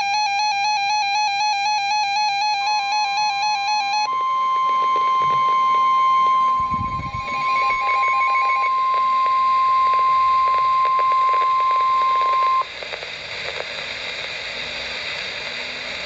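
Weather alert radio sounding its warbling alert alarm, joined about two and a half seconds in by NOAA Weather Radio's long steady warning alarm tone, the signal that a warning message follows. The steady tone runs about ten seconds and cuts off suddenly, leaving radio static hiss. There is a brief thump in the middle.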